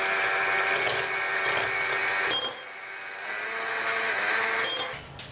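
Electric hand mixer running, its twin beaters whisking a thin egg-and-milk mix in a glass bowl: a steady motor whine. A little over two seconds in it drops in level with a click, runs on quieter, and stops near the end.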